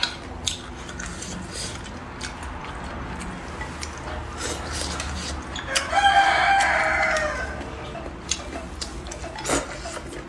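A rooster crowing once, a single call of about a second and a half starting a little past the middle. Short scattered clicks and smacks of eating come before and after it.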